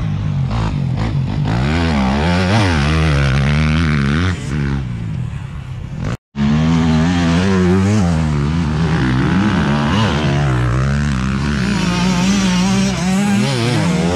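Motocross dirt-bike engines revving, their pitch rising and falling again and again as riders go round the track. The sound cuts out for a moment about six seconds in.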